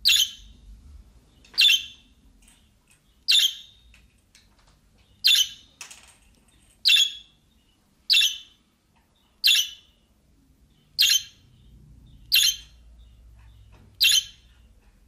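Budgerigar giving short, sharp squawking calls, one about every second and a half, about ten in all.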